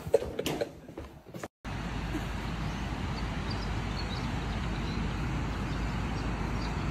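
A few light knocks, then after a brief gap a steady rushing noise with a deep low rumble: surf breaking on a beach.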